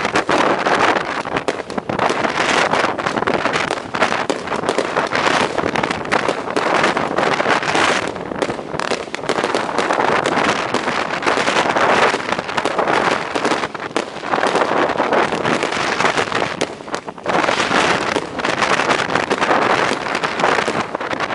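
Very strong wind rushing over the microphone, a loud, continuous noise that swells and dips in gusts.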